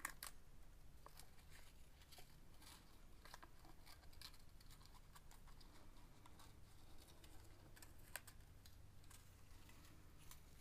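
Faint, scattered clicks and ticks of thin beading wire being unwound, measured off to about a metre and snipped with wire cutters.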